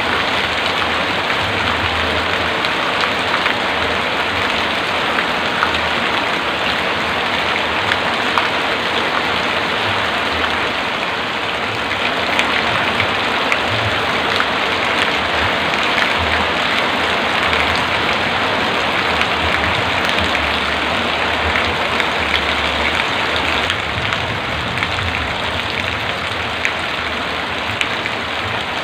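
Heavy rain falling steadily: a dense hiss of countless drops striking surfaces. Low rumbles come and go underneath.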